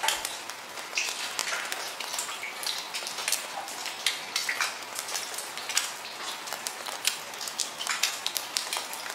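Underwater ambience of a coral reef: a steady hiss full of dense, irregular crackling clicks.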